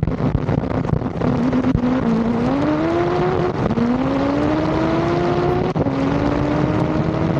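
Turbocharged Honda B18 four-cylinder drag car under full throttle. The engine note climbs steadily and drops abruptly at two gear changes, about three and a half and six seconds in.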